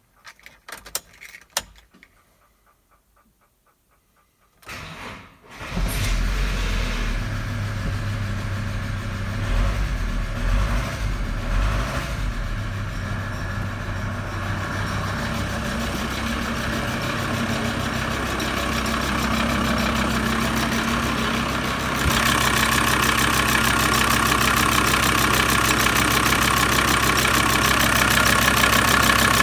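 Volkswagen LT 2.5 TDI (AVR) five-cylinder diesel engine being started: a few clicks, a pause of about three seconds, then the starter cranks briefly and the engine catches about five and a half seconds in and settles into a steady idle. From about 22 seconds in it is louder and clearer, heard at the open engine bay rather than from the cab.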